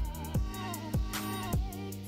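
Background music with a steady beat: a drum thump a little under twice a second under a wavering, held melody.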